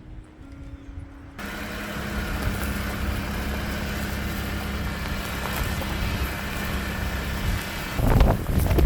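A motor vehicle running, with a steady engine hum and road noise that cut in suddenly about a second and a half in, and loud low rumbling buffets near the end.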